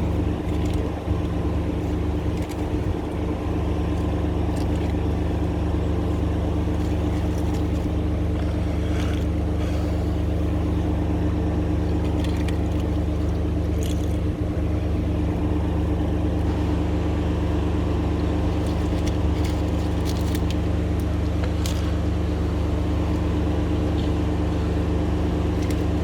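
High-pressure drain jetting machine's engine running steadily, with a few faint knocks now and then.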